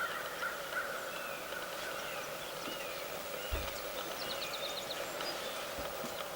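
Outdoor ambience: faint bird chirps and a quick run of high ticks over a steady background hiss, with two low bumps, one about three and a half seconds in and one near the end.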